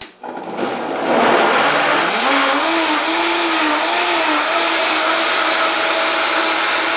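High-powered countertop blender blending a green smoothie of fruit and kale. The motor starts at the beginning, climbs in pitch over the first two seconds, then runs steadily with a slight wavering as the contents churn.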